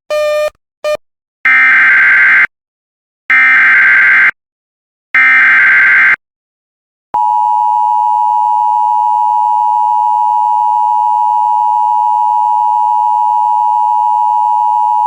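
Emergency Alert System alert opening: three one-second bursts of screeching SAME digital header data, then the EAS attention tone held steady for about eight seconds and cut off sharply. Together they announce a severe thunderstorm warning. Two short beeps sound right at the start.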